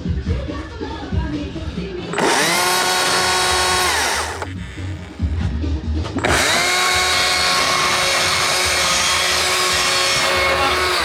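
Electric power tool motor run twice: it spins up to a steady high whine, holds for about two seconds, winds down, then runs again for about four and a half seconds before winding down near the end. Music plays beneath it at first.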